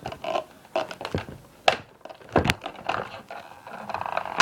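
Cardboard and plastic packaging being cut open and handled with a razor blade: scraping and rustling with a few sharp knocks, the loudest about two and a half seconds in.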